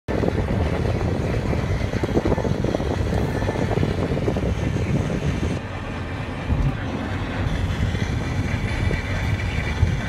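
Steady low rumble and hiss inside a car's cabin, with no clear speech or tones.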